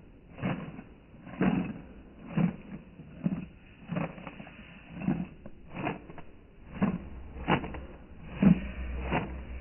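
Matchsticks making a short, sharp sound about once a second, evenly repeated. A faint low hum comes in near the end.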